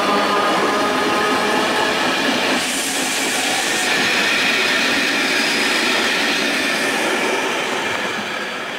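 Czech passenger coaches of an express train rolling past at close range: a steady rumble of wheels on rail with a thin steady whine above it, fading over the last couple of seconds as the last coach goes by.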